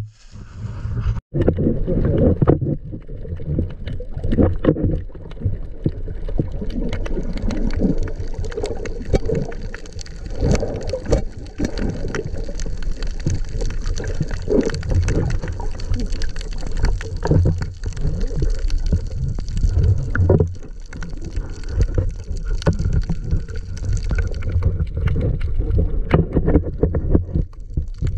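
Muffled underwater sound heard through an action camera's housing: a low rumble of moving water with gurgling and many small clicks throughout.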